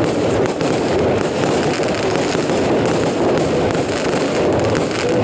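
Fireworks crackling: a dense, unbroken stream of rapid small pops and bangs.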